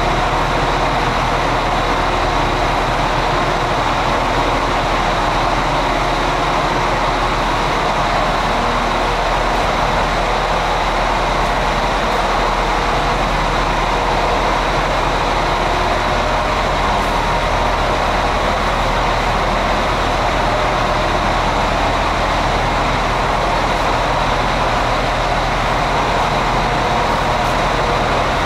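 Irish Rail diesel train idling: a steady low engine hum with a faint high whine, unchanging in level.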